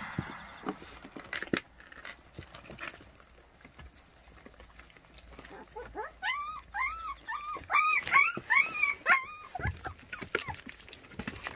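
A white baekgu puppy whining: from about halfway through comes a quick run of a dozen or so short cries, each rising and falling in pitch. Before that there is light scuffling and clicking of paws on the floor.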